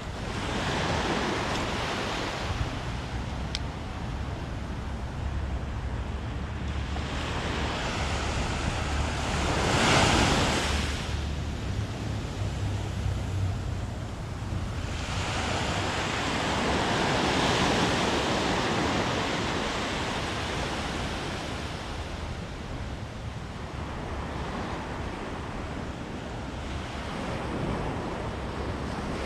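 Sea waves breaking and washing up the shore, swelling and fading in slow surges, the loudest about ten seconds in, with wind rumbling on the microphone.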